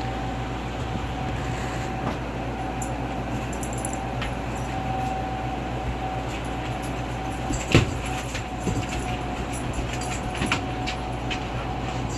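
Steady low machine hum with a thin high whine over it, dotted with faint clicks and one sharper knock about eight seconds in.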